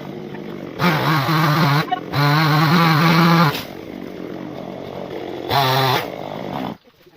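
Chainsaw engine running, revving up to full throttle three times and dropping back to idle in between, then cutting off suddenly near the end.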